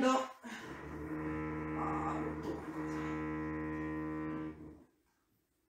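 Steady, unchanging drone of a small engine from gardeners' power equipment, which cuts off suddenly near the end.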